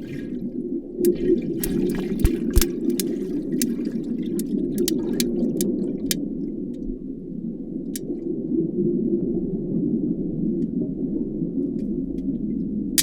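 Spotted estuary smooth-hound shark making sharp clicks underwater, much like computer mouse clicks. About fifteen come in an irregular run over the first six seconds, then a single click a couple of seconds later and another at the very end, over a steady low water hiss.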